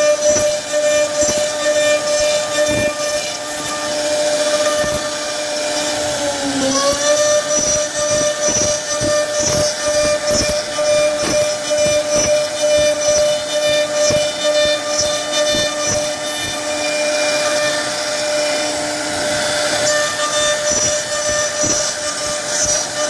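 CNC router spindle running with a steady high whine as its bit cuts into a wooden panel, over the rough, crackling noise of the cut. About six and a half seconds in, the whine sags briefly in pitch and then recovers.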